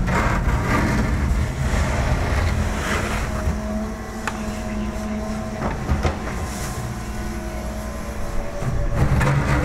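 Hitachi Zaxis 125W wheeled excavator's diesel engine and hydraulics working as the bucket is raised and swung, with a few sharp clanks midway. The engine sound eases off after about four seconds and picks up again near the end.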